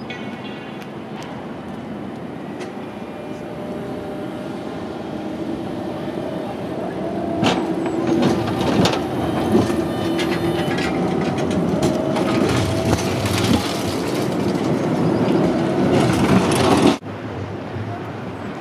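Alstom TFS tram passing close by, its motor hum growing steadily louder, with a scatter of sharp clicks and clatters from the wheels on the track. The sound cuts off suddenly near the end and gives way to quieter street noise.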